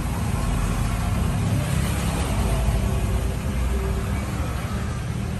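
Steady low rumble of a motor vehicle engine, swelling a little in the middle.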